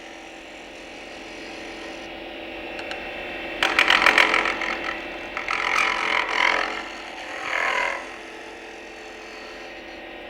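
Wood lathe running with a steady hum as a turning tool cuts a spinning wooden ball. From about three and a half seconds in, the cut scrapes in loud, uneven bursts for about four seconds, then the lathe runs on alone.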